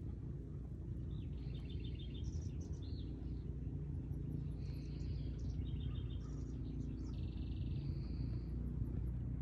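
Songbird singing in two runs of short, rapid trills and chirps, over a steady low rumble.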